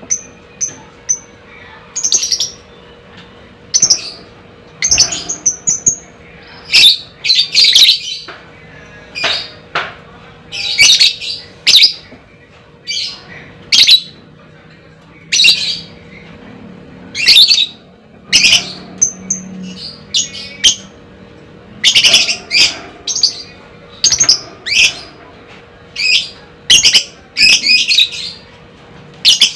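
Lovebird calling in short, shrill bursts of chattering notes, repeated every second or two with brief pauses between them.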